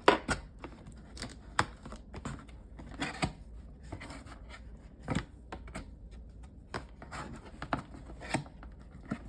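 Cardboard box and packaging being opened and handled by hand: irregular clicks, knocks and short scrapes and rustles, the sharpest knocks near the start, about a second and a half in, and about five seconds in.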